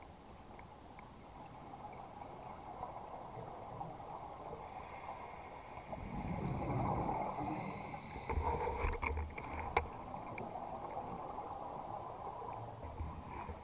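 Underwater sound of scuba divers breathing: a steady hiss with a louder burst of bubbling from a regulator's exhaust about six seconds in, followed by a scatter of sharp clicks.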